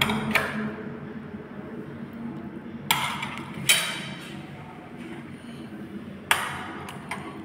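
Steel spoons clinking against stainless-steel thali bowls and plate: a handful of sharp, ringing metal clinks a second or a few seconds apart.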